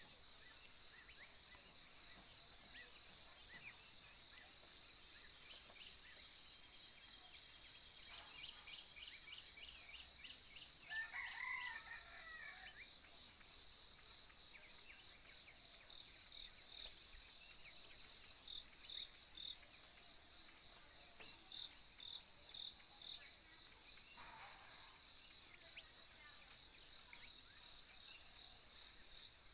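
Steady high-pitched insect drone in the background, with a rooster crowing once about eleven seconds in and a few short high chirps later on.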